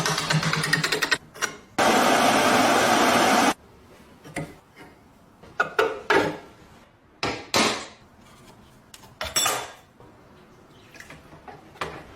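Tool work on a rusty metal lock. Rapid clicking over a low hum for about a second, then a loud steady rushing noise lasting about two seconds, then scattered metal clinks and scrapes.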